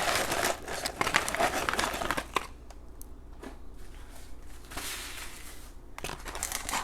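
Paper fast-food packaging rustling and crinkling as it is handled, with scattered clicks and taps. It dies down about halfway through and picks up again near the end.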